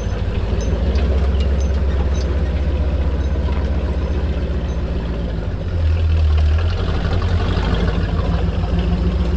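Off-road recovery truck's engine running as it drives slowly over rough, muddy ground, a steady low drone with light knocks and rattles; it swells louder for about a second around six seconds in.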